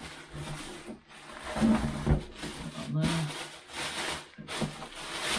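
Packaging rustling and crinkling as the vacuum body is unwrapped, in uneven bursts with a few dull knocks of the unit being handled.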